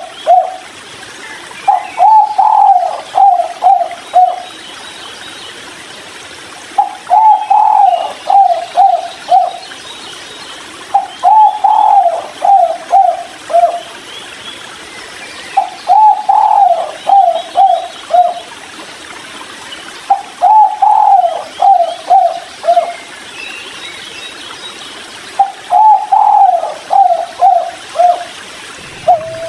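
Spotted dove (tekukur) cooing its 'kuk 3' song: a phrase of several quick coos, repeated about every four to five seconds, six times.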